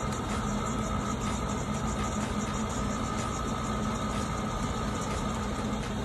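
Oil burner running steadily while air is bled from its fuel pump after the oil tank ran dry: a steady motor hum with a faint high whine above it.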